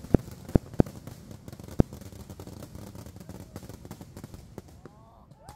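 Kerala temple fireworks (vedikettu): four or five sharp bangs in the first two seconds, then a steady crackle of bursting aerial shells that dies away near the end.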